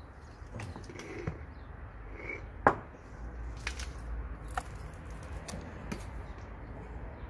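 A few scattered sharp clicks and taps, one much louder about two and a half seconds in, over a low steady rumble.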